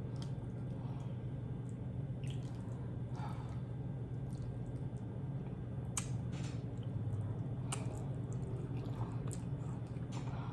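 Close-up wet chewing and mouth smacks of someone eating creamy instant ramen noodles: scattered short clicks over a steady low hum.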